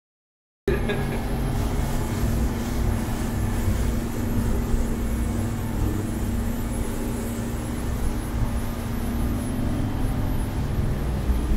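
Cummins turbo-diesel engines of a 50-foot motor yacht running hard at planing speed: a steady low drone with a constant hum, mixed with wind and rushing water. It cuts in after a moment of silence at the start.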